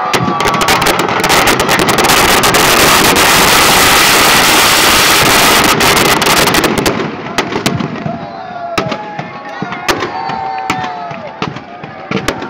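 Firecrackers packed into a burning Ravana effigy going off: a dense hissing crackle thick with bangs for the first several seconds, thinning at about seven seconds in to scattered firecracker bangs and crackles. Crowd voices shout over the later bangs.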